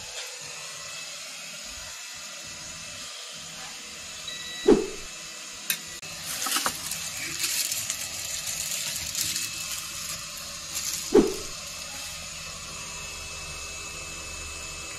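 Handling noise at a repair bench over a steady hiss. There are two dull knocks, about five and eleven seconds in, and several seconds of rustling and scraping between them as the probes and laptop motherboard are handled.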